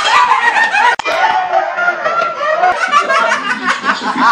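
Young men laughing, in short repeated bursts of voice.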